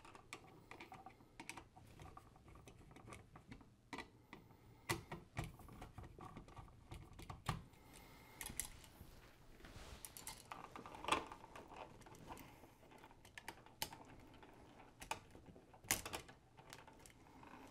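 Screwdriver loosening the brass terminal screws of a single-pole wall switch while the wires are unhooked: faint, irregular small clicks and scrapes of metal and plastic, with a few sharper clicks.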